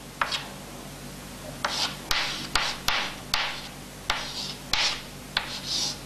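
Chalk writing on a blackboard: a run of short scratchy strokes and sharp taps as numbers and brackets are written.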